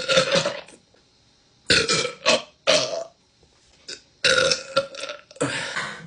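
A woman belching repeatedly: about five separate burps, each under a second long, with short pauses between them.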